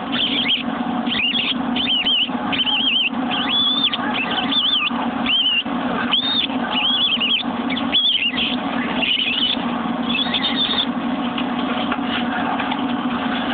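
Baby mice squeaking over and over in short, high squeaks that rise and fall, sometimes several a second: the distress squeaks of feeder mice caught by a feeding gopher snake. A steady low hum runs underneath.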